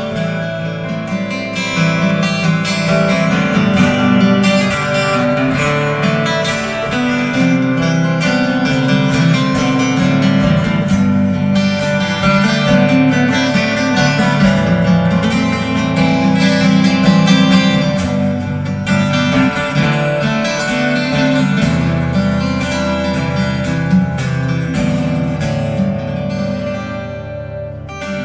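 Live instrumental passage on three guitars, acoustic guitars strumming with picked notes over it and no singing. It grows quieter over the last couple of seconds.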